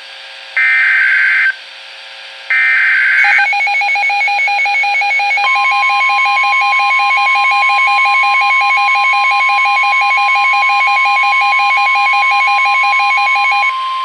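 Midland NOAA weather alert radio receiving a tornado warning. Two short bursts of buzzing SAME header data come first. About three seconds in, the radio's own rapid two-tone beeping alarm starts, and about two seconds later the broadcast's steady 1050 Hz warning alert tone joins it. Both stop near the end.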